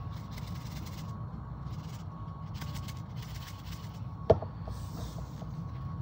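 Salt shaken from a cardboard salt canister onto eggs in a glass dish, in several short shakes, over a steady low hum. A single sharp knock comes about four seconds in.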